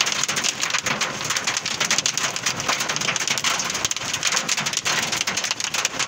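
Heavy rain and hail pelting the vehicle's roof and windshield, heard from inside the cab: a dense, loud patter of countless sharp ticks.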